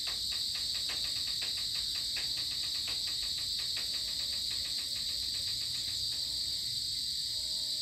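Steady high-pitched chorus of insects shrilling, with a rapid ticking call of several pulses a second in the first half that fades away.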